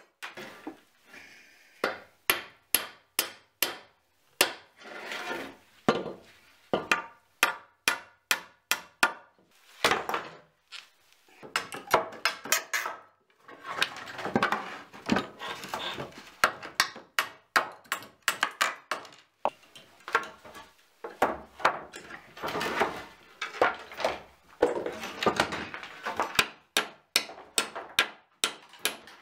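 Old wooden boards being worked with a steel pry bar and shifted: a quick run of sharp knocks of metal and wood on wood, with several stretches of clatter and scraping in between.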